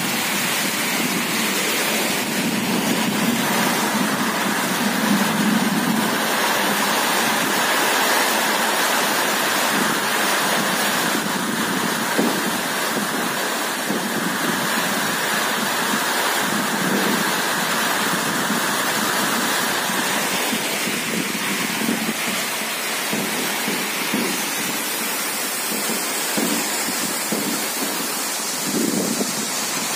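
Steady rain falling on an umbrella held overhead.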